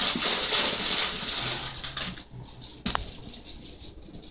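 A plastic bag of dry stuffing-mix crumbs rustling as the crumbs are poured and sprinkled over a casserole, loudest for the first two seconds, then quieter, with a single sharp tap about three seconds in.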